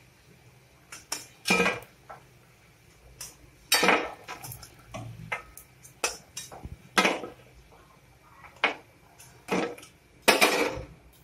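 Metal spatula scraping and clinking against an aluminium kadai and a steel plate as fried lentil fritters are lifted out of the oil, in separate short strokes every second or so, the longest near the end.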